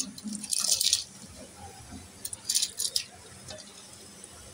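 Soaked rice scraped by hand out of a steel bowl into a pot of hot water. There are two short bursts of grains rattling against the steel and splashing into the water.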